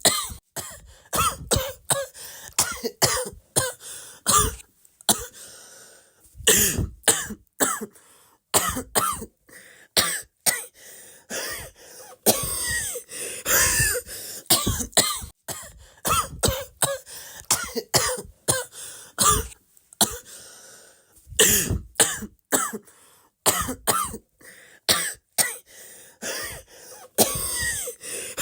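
Coughing over and over in quick runs of several short, sharp coughs, with brief pauses between the runs.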